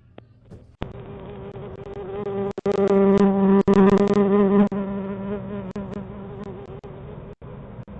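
A steady buzzing hum picked up by a Ring security camera's microphone. It swells to its loudest about three to four seconds in, then fades to a lower steady drone. A few short dropouts cut through it.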